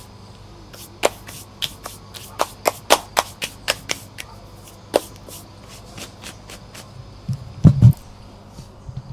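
A run of irregular sharp clicks and taps, most of them in the first half, with a brief low sound a little under eight seconds in.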